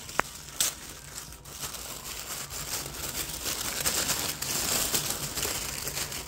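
Tissue paper crinkling and rustling as hands unwrap stickers from it, with many small crackles.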